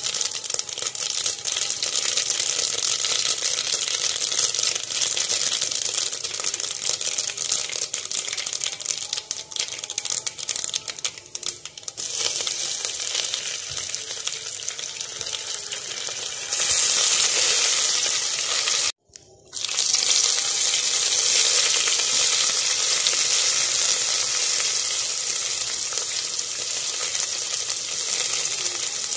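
Mustard seeds crackling and popping in hot oil in a steel pot, a dense run of small pops that thins out partway through. After that a louder, steady sizzle takes over as green chilli, sliced onion and curry leaves fry in the oil, broken once by a moment of silence.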